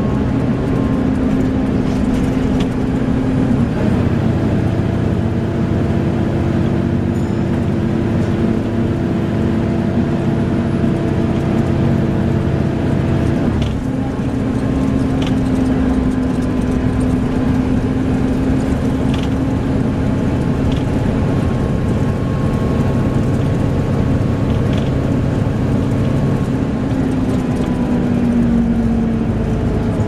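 Volvo B7TL double-decker bus heard from on board while under way: its six-cylinder diesel engine and drivetrain run with a steady whine over road rumble. The pitch steps about four seconds in and again around fourteen seconds in, and a tone falls near the end.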